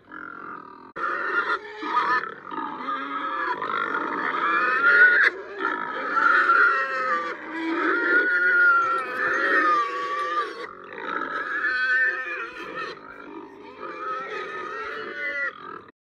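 Domestic pig grunting and oinking, a near-continuous run of wavering calls with a few short breaks.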